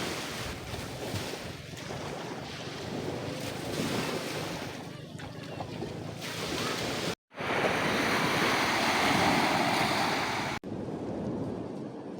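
Ocean waves washing onto a beach, with wind buffeting the microphone. The sound breaks off abruptly twice, after about seven seconds and again near the end, and the middle stretch is louder.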